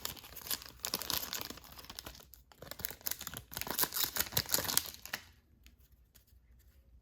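Foil wrapper of a Topps holiday baseball card pack being torn open and crinkled in the hands, a dense crackling that stops about five seconds in.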